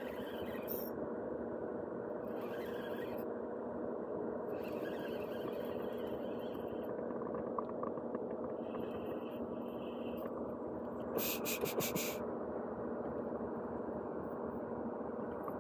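Spinning reel being cranked in several short spells over a steady low hum, with a brief run of rapid clicks about eleven seconds in. It is the retrieve of a hooked giant freshwater prawn on a bent rod.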